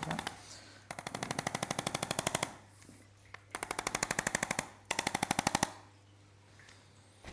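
Percussive massage gun running in short bursts against the body, each burst a rapid, even train of strokes lasting about a second, with brief pauses between.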